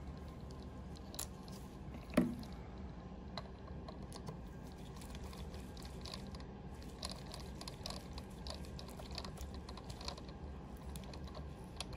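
Small metallic clicks and scrapes of a 5 mm hex key turning bolts into a metal printhead mounting bracket, with one louder knock about two seconds in.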